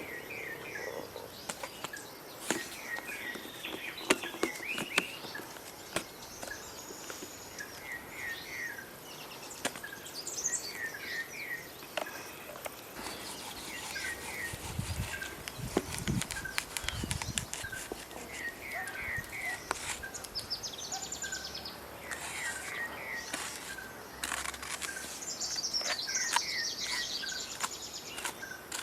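Wild birds singing: one repeats a short phrase of three or four quick chirps every second or two, while others give higher warbling calls. Scattered sharp clicks and a few low thumps about halfway through.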